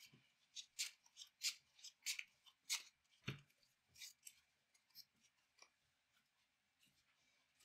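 Faint quick swishes of a deck of trading cards being shuffled by hand, a short snap about every half second, with one soft knock about three seconds in. The swishes thin out after about six seconds.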